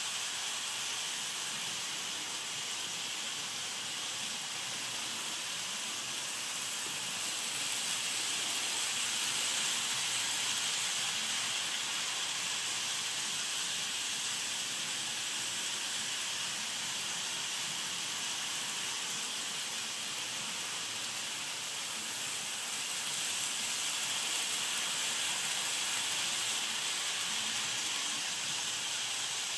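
KATO N-scale model trains running on Unitrack, giving a steady high hiss of wheels and motors that swells a little as the trains pass close by.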